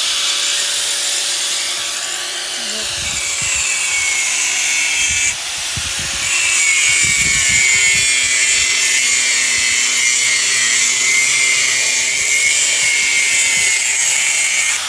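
A power tool running continuously under load, a high-pitched whine that dips and rises in pitch as it works, with a sudden shift about five seconds in.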